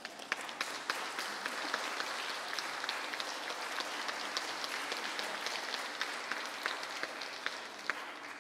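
Congregation applauding, many hands clapping at once. The applause swells in at the start and tapers off near the end.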